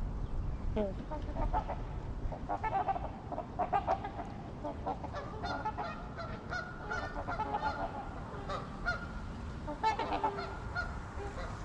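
A flock of large waterfowl honking: many short, overlapping honks, coming thickest in the middle of the stretch.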